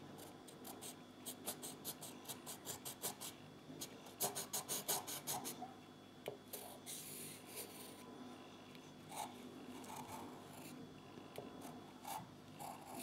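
A child scribbling with a coloured pencil on paper: quick back-and-forth scratching strokes in a few short runs, loudest about four to five seconds in.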